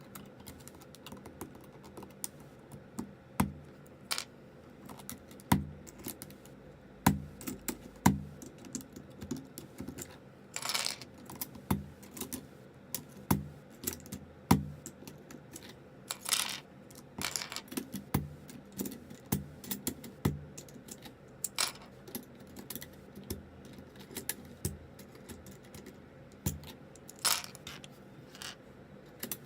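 Plastic keycaps being pulled off and pressed back onto the switches of a zz96 99-key mechanical keyboard: irregular sharp clicks and snaps, with a few longer scraping noises in between.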